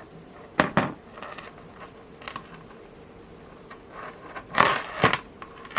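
A lighter being struck: a pair of sharp clicks a little over half a second in, then a louder scraping rasp with clicks near the end.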